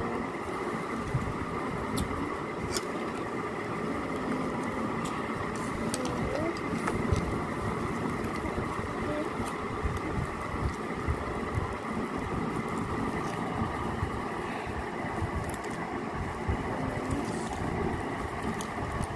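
Steady mechanical hum with a few thin whining tones over a low rumble, dotted with scattered faint clicks.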